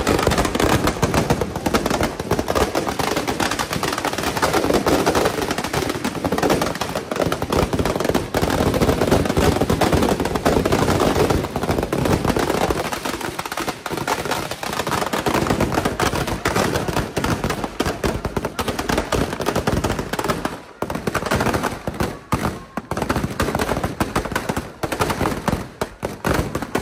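Firecrackers packed inside a burning Ravan effigy going off in a rapid, continuous crackle of bangs. After about twenty seconds the crackle thins out into scattered separate bangs.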